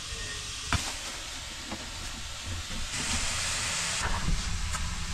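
Breakfast sausage sizzling in a frying pan: a steady hiss, with one sharp knock about a second in. The hiss swells louder for about a second around three seconds in.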